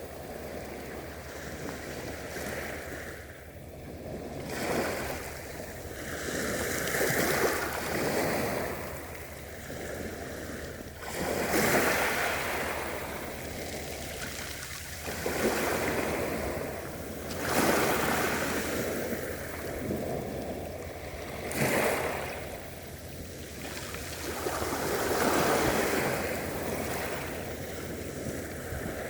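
Gentle sea waves breaking and washing up a beach, the surf swelling and ebbing every few seconds.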